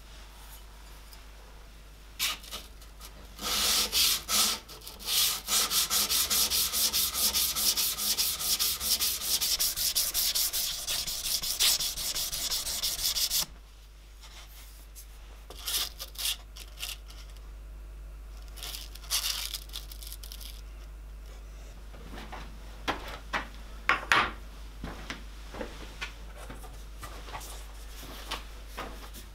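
A steel knife blade being hand-sanded, drawn back and forth over sandpaper wrapped round a block clamped in a vise. A long run of quick, loud rasping strokes stops suddenly, and is followed by softer, scattered strokes on fine P800-grit paper.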